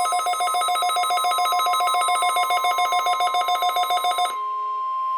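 Weather radio receiver sounding its alert for a Required Weekly Test: a rapid warbling trill of about nine pulses a second over a steady high tone. The trill stops a little past four seconds in, and the steady tone carries on alone.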